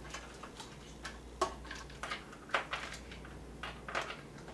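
Light, irregular clicks and taps of hands handling cables and parts inside a small computer case, about half a dozen in all.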